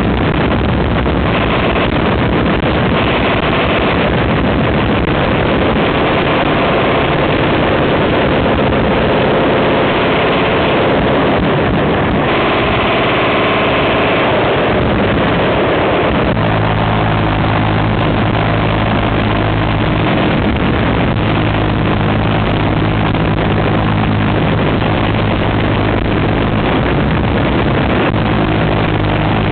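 Continuous heavy automatic gunfire from many machine guns, including a minigun, in an unbroken din. About halfway through, a steady low buzz joins in and holds.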